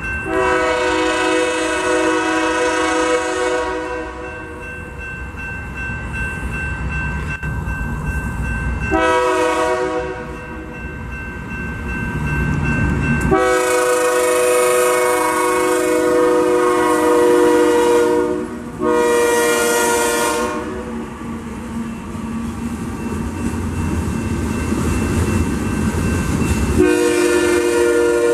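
BNSF freight train's locomotive horn sounding for a grade crossing: a series of five blasts, long and short, over the steady rumble of the train. Near the end the freight cars roll past with clattering wheels.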